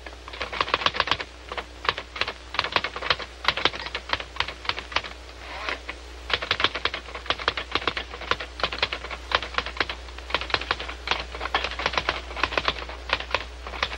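Manual typewriter being typed on in quick runs of keystrokes, with brief pauses between runs, over a steady low hum.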